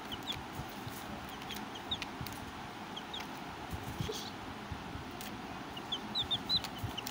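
Baby chicks peeping: scattered short, high peeps, with a quicker run of several peeps near the end, over a steady background hiss.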